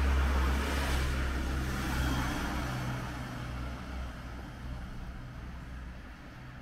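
A motor vehicle driving past, its engine rumble and road noise loudest in the first second or two and then fading away.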